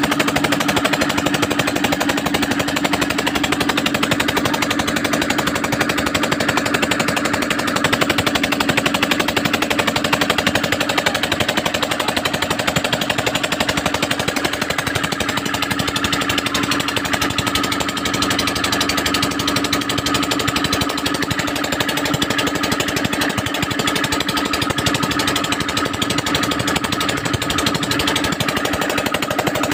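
Single-cylinder diesel engine of a wooden river boat running steadily under way, close by, with a fast even knock over a steady hum.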